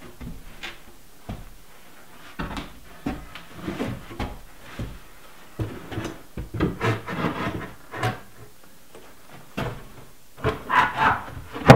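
A 3/4-inch plywood tabletop being lowered and slid onto wall-mounted French cleats: irregular wooden knocks, scrapes and rubbing as the 45-degree cleat edges lock together. The loudest sharp knock comes right at the end.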